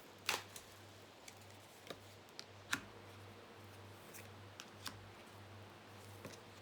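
Tarot cards being handled and drawn from the deck: a few scattered light clicks and snaps over a faint, steady low hum.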